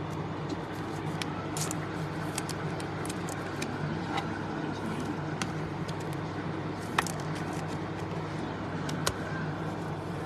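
Light clicks and taps of trading cards being handled and flipped through over a steady low hum, with two sharper clicks near the end.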